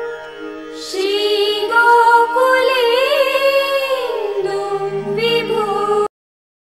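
Devotional song: a voice singing a long, slowly winding melody over steady held accompaniment notes. It cuts off abruptly about six seconds in, leaving dead silence.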